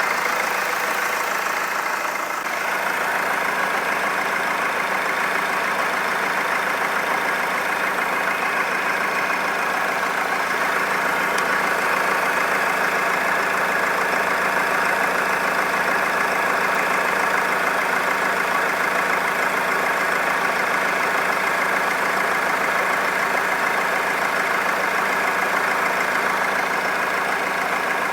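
Honda Accord 2.2 i-CTDi four-cylinder turbodiesel engine idling steadily, with the knocking noise that the owner puts down to leaking injectors.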